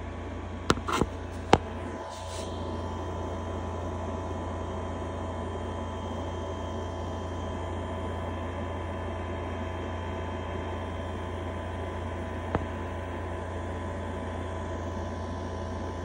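Steady hum and whir of reef aquarium equipment: circulation pumps running. A few sharp clicks about a second in and a single click near the end.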